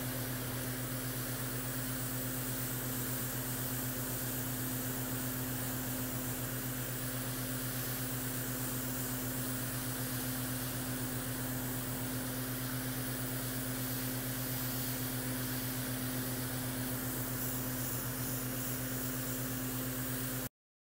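Airbrush compressor running with a steady, even hum, under the hiss of air from the airbrush as it sprays paint onto a T-shirt. The sound cuts off abruptly near the end.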